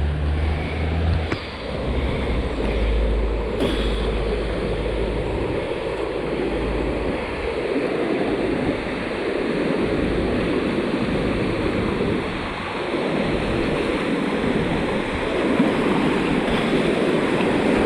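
Whitewater rushing over a river block ramp, heard from a stand-up paddleboard approaching and then running the ramp, steady and growing louder toward the end. Wind rumbles on the microphone during the first few seconds.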